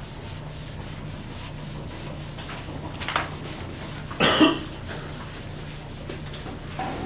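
Felt whiteboard eraser rubbing across a whiteboard in repeated wiping strokes, with one much louder short sound just after four seconds in.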